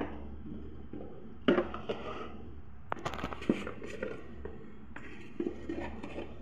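Kitchen handling noises: a few short knocks and clicks from utensils and containers, over a steady low hum.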